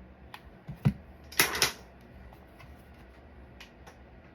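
Sterling custom pump paintball marker being worked and fired: two light clacks as the pump is stroked, then a sharp shot about a second and a half in, followed by a couple of faint clicks as it is pumped again.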